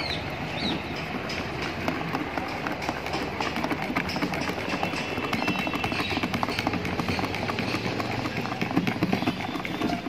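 Wire balloon whisk beating a thick yogurt marinade in a plastic bowl: a fast, irregular run of clicks as the wires strike the bowl.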